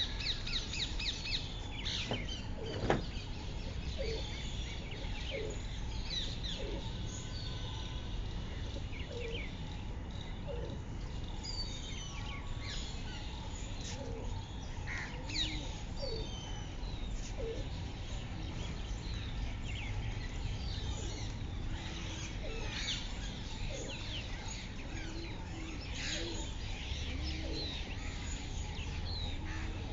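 Small birds chirping and calling intermittently over a steady low outdoor rumble, with one sharp knock about three seconds in.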